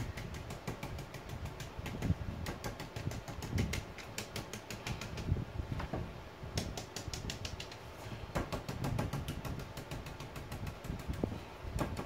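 Rapid light tapping of paint being dabbed through a stencil onto a kitchen cabinet door, in quick runs of several taps a second with short pauses between them.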